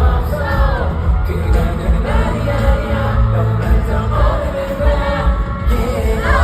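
Live pop song over a PA system: sung vocals over a backing track with heavy bass.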